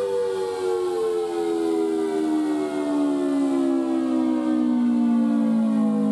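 Federal Signal Thunderbolt 1000T outdoor warning siren sounding its attack signal, loud. Its chord of two close tones glides steadily down in pitch.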